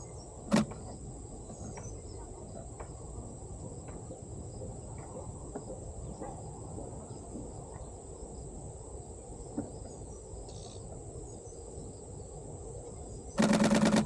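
Steady high insect trill over low outdoor background noise. A single sharp click comes about half a second in, and a brief rapid burst of clicks near the end is the loudest sound: a DSLR shutter firing once, then in continuous mode.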